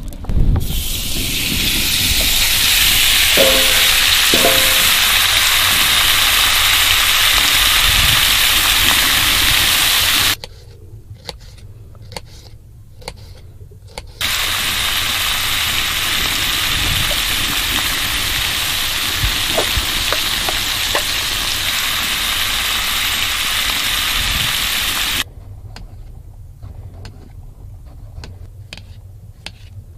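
Food sizzling loudly in hot oil in a frying pan, starting suddenly about half a second in. It breaks off twice into quieter stretches of knife strokes on a cutting board, the sizzling returning between them.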